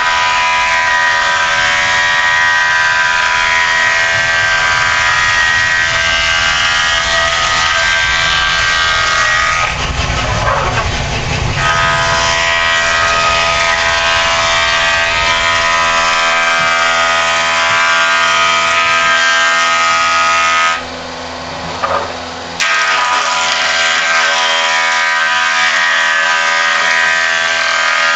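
Jointer (buzz planer) running with a steady, loud whine as the ash oar blank is planed across its cutterhead. The sound drops off briefly about three-quarters of the way through, then picks up again.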